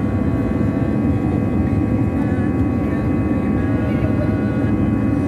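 Steady cabin noise of an Airbus A320-200 in flight, heard at a window seat beside the engine: a constant rush of jet engines and airflow with steady whining tones over it.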